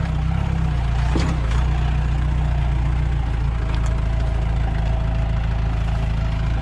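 Mahindra jeep's diesel engine running steadily at low revs while pulling along a rough dirt track in two-wheel drive, with a couple of faint brief knocks.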